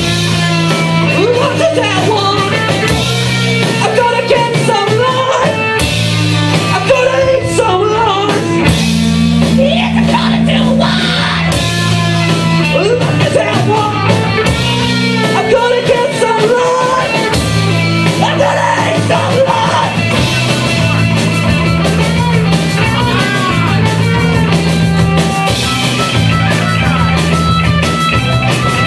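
Rock band playing live: electric guitars and drums, with a man singing over them.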